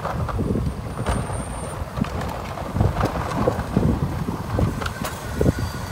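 Rear loader garbage truck's engine running while the truck stands, with gusty wind on the microphone and a few sharp knocks.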